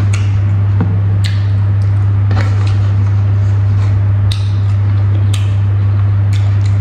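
A loud, steady low hum, with short wet clicks about once a second from a man eating with his fingers: lip smacks and chewing close to a clip-on microphone.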